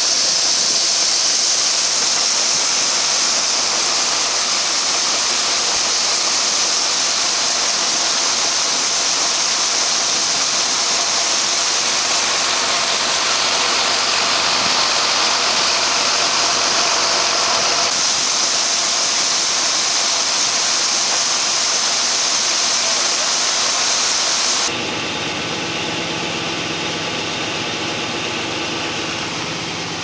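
Farm machinery running at harvest: a loud, steady rushing engine and machine noise, which changes abruptly about 25 seconds in to a lower, quieter engine drone with a steady hum.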